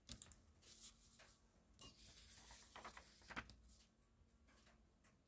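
Faint paper rustling and a few light taps as a steel ruler is shifted and pressed onto a sheet of patterned paper on a cutting mat; quiet after about three and a half seconds.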